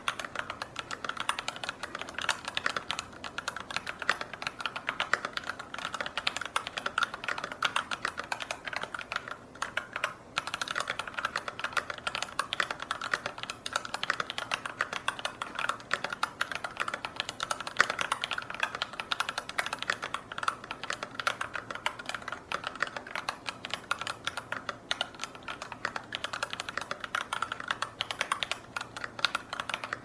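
Steady, fast typing on a Glorious GMMK Pro mechanical keyboard with an aluminum plate, Pinoko switches lubed with Krytox 205 and GMK keycaps: a dense run of keystrokes with a brief pause about ten seconds in.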